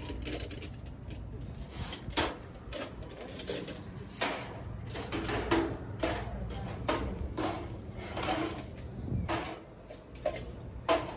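Shop background: a steady low hum with irregular light knocks and clicks, a few a second in places.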